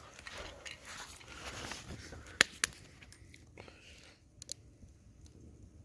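Wood campfire crackling, with two sharp pops about two and a half seconds in and a few fainter snaps later.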